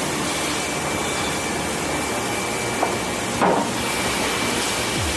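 Sawmill machinery running with a steady noise and a faint high steady tone, and a single loud knock about three and a half seconds in.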